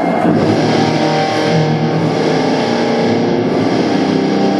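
Rock band playing live through a PA, with distorted electric guitar carrying sustained notes, during a soundcheck.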